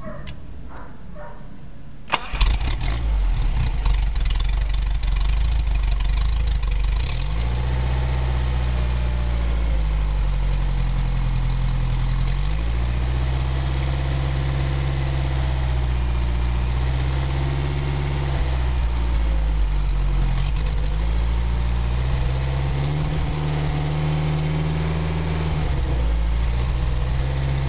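Mercedes-Benz 190SL four-cylinder engine with twin carburettors starting about two seconds in, catching almost at once, then running on the test stand with its speed rising and falling over and over rather than holding a steady idle.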